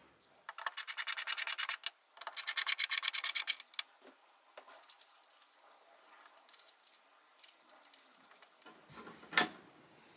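A hand screwdriver driving the screws that fix a brass drawer-pull backplate, in two runs of rapid, even clicking, then fainter scattered ticks. A single sharp knock near the end.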